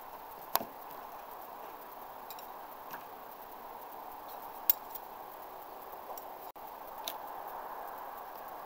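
Sharp metallic clinks and taps of throwing knives being pulled from a plywood target and handled, the two loudest about half a second in and just before the five-second mark, over steady faint background noise.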